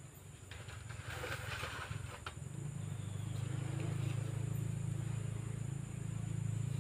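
Bamboo poles knocking lightly, with leaves rustling, as a bamboo pole is handled and set on a bamboo frame. A low steady engine drone sets in about two and a half seconds in and grows louder.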